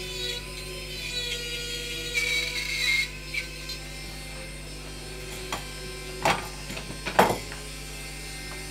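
Small rotary carving tool with a tungsten carbide ball burr grinding wood, its whine wavering in pitch under load for the first few seconds. A few sharp knocks follow, the loudest about seven seconds in.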